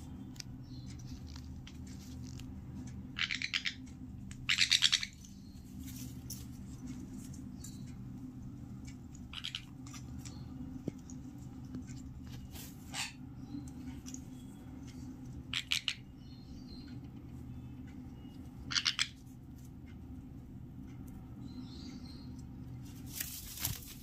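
Sun conures giving short chirping calls, scattered through, about seven in all, the loudest a few seconds in, over a steady low hum.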